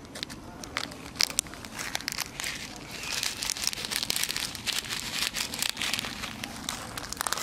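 Plastic food packet crinkling and rustling as it is handled, in quick crackly bursts that grow denser about three seconds in.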